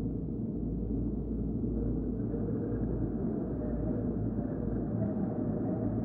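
Designed sci-fi alien-world ambience: a steady low rumbling drone with a faint wavering tone above it.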